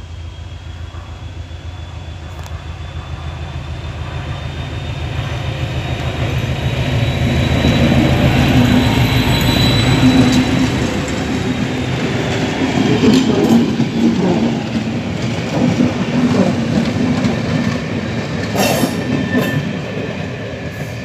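Class 73 locomotive hauling a rake of slam-door coaches, approaching and passing close by. Its rumble grows steadily louder to a peak about ten seconds in as the locomotive goes past, followed by the clatter of the coaches' wheels over the rail joints. A thin high whine rises and falls over the first half.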